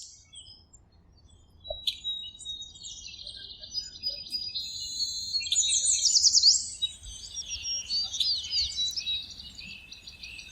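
Several birds singing and chirping: quick repeated chirps, trills and rising and falling whistled notes, sparse at first and growing fuller about two seconds in.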